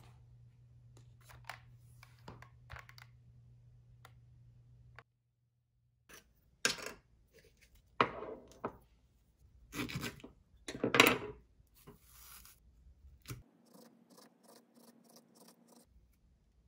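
Handling sounds at an amber supplement bottle: a series of short scrapes and crackles as its foil seal is torn open and a capsule is taken out, the loudest a few seconds apart.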